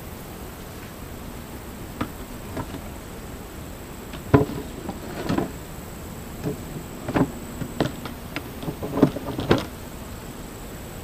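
Scattered knocks and clunks of wooden beehive boxes and lids being handled, the sharpest about four and a half seconds in, over the steady buzzing of honeybees.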